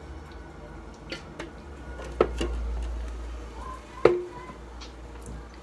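Aluminium drink cans knocked and set down on a tabletop: a few sharp taps, some with a short metallic ring, the loudest about four seconds in.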